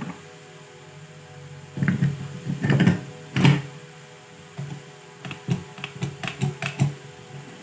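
Clicks, knocks and taps of tools and metal parts being handled on a motor starter: a few louder knocks about two to three seconds in, then a run of light irregular clicks, over a steady hum.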